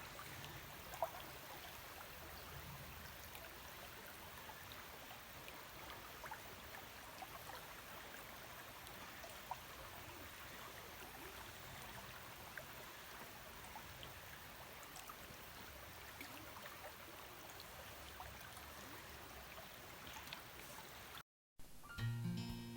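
Clear river water flowing: a steady, faint rush of water.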